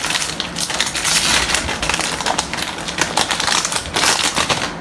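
Foil wrapper of a Pokémon card booster pack being torn open by hand, crinkling and crackling in a dense run of small tears and crackles that stops near the end.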